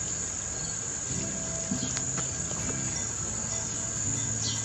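Steady, high-pitched, continuous trill of insects, of the cricket kind, with a single sharp click about two seconds in.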